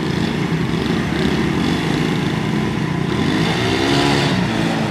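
Single-cylinder four-stroke motorcycle engines of a Suzuki GS 150 and two 70cc Unique bikes running hard under load while pulling against each other on a tow rope. The engine note swells and falls about three seconds in.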